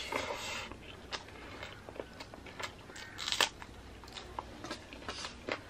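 A person chewing a mouthful of rice, pork and greens, with scattered small clicks of the mouth. A sharper, louder crunch comes a little past three seconds in as a fresh green chilli is bitten.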